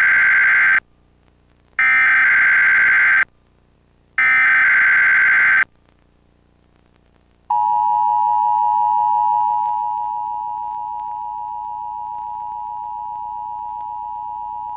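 Emergency Alert System SAME header: three bursts of shrill, screeching digital data tones, each about a second and a half long with about a second's gap between, the first already under way. About two seconds after the last burst the steady two-tone EAS attention signal (853 and 960 Hz) comes in and holds, easing slightly in level a couple of seconds later.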